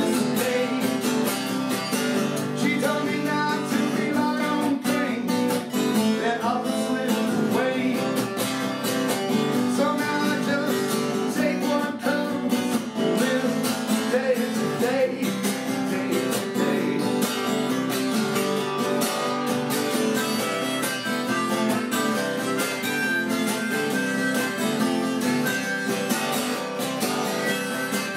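Epiphone acoustic guitar strummed steadily, with a harmonica played from a neck rack over it.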